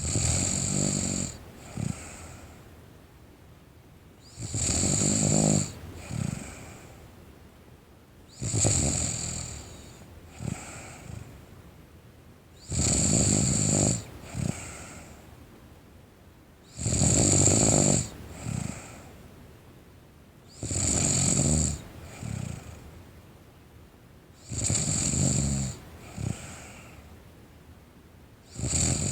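A teenage girl snoring in her sleep: a loud snore about every four seconds, eight in all, each followed by a brief second sound.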